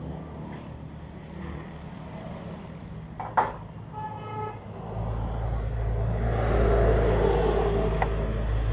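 Road traffic: a short horn toot about four seconds in, then a vehicle passing close by, its low rumble building to a peak and easing off again. A single sharp click comes just before the toot.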